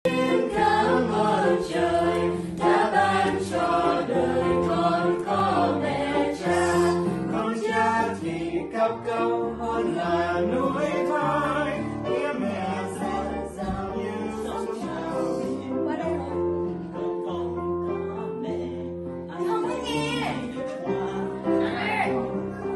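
Small mixed choir of adults and children singing a Vietnamese hymn together, with keyboard accompaniment holding low notes beneath.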